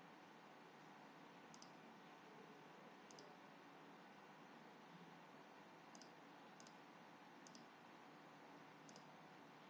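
Faint computer mouse clicks: about six separate clicks, each a quick press-and-release pair, spaced irregularly over a steady low hiss.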